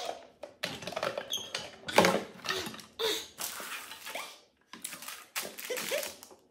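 Candy bars in plastic wrappers crinkling and rustling as they tumble onto a tabletop and are grabbed, in a run of short separate rustles, loudest about two seconds in.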